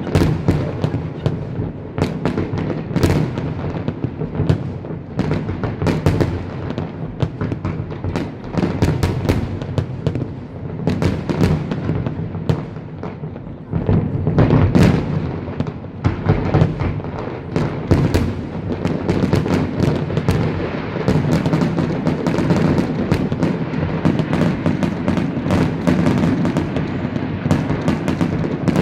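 Fireworks display going off in a dense barrage: rapid sharp bangs and crackles from bursting shells over a continuous low rumble. About halfway through it grows louder.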